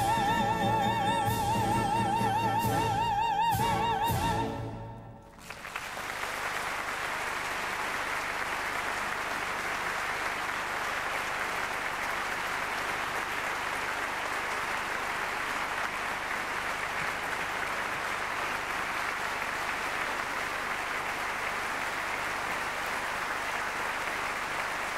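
Operatic soprano holding a high final note with wide vibrato over the orchestra's closing chord, ending about five seconds in. Then an audience applauding steadily.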